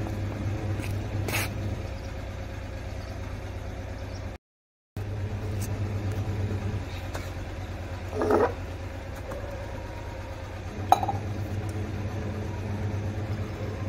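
Steady low engine-like hum of a motor running throughout, with a short clatter a little past halfway and a sharp metallic clink of steel utensils near the end.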